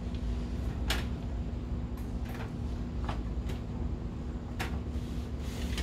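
Sharp metal knocks and clicks from a rackmount drawer's steel top cover and slide rails as they are handled, about seven in all, the loudest about a second in, over a steady low hum.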